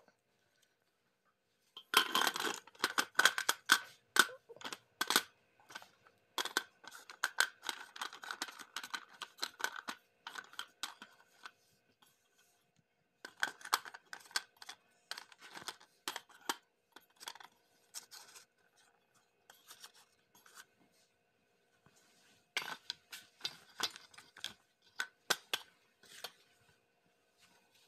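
Clay sticks being laid one by one into a steel plate, clicking and clattering against the metal and against each other in bursts, with short quiet gaps between.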